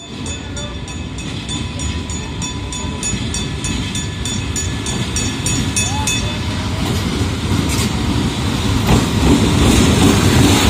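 Diesel-electric locomotive of Pakistan Railways running as it draws in along the platform, its low engine rumble growing steadily louder as it comes close and passes. A faint regular high ticking, about three a second, runs through the first half and then fades under the rumble.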